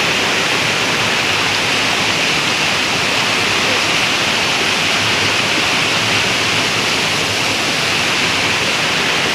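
Mountain stream rushing and cascading over boulders: a steady, unbroken rush of white water.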